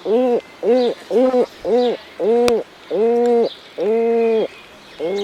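Great Cormorant calling: a series of about seven deep calls, each rising and falling in pitch, the last two drawn out longer. A single sharp click sounds about halfway through.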